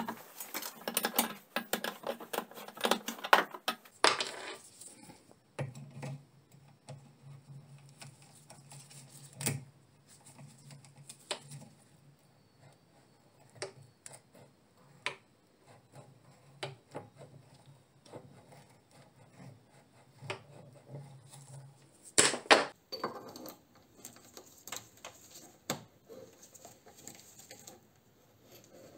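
Metal-on-metal clatter from hand tools at a bench vise: a dense run of clanks and rattles for about the first four seconds, then scattered single clicks as the roller chain of a homemade chain pipe wrench is wrapped around a rusty pipe, with another short burst of clatter about two-thirds of the way through.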